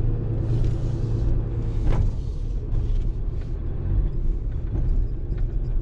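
Dodge Ram 4500 tow truck driving, heard from inside the cab: a steady low engine and road rumble, with a single click about two seconds in.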